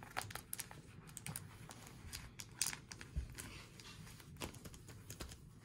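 Faint plastic rustling and scattered soft clicks: a sleeved trading card being slid into a clear plastic pocket of a binder page.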